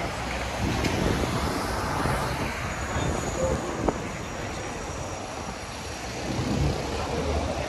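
Road traffic on a busy city street: a steady rumble of passing motor vehicles that swells and fades, with one sharp click just under four seconds in.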